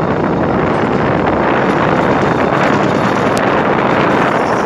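Bamboo train running along the rails: a loud, steady rushing noise of the moving ride, with wind buffeting the microphone.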